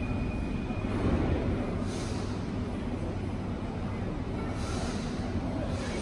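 Bucharest Metro train running with a steady low rumble, with short hisses of air about two seconds in and twice more near the end.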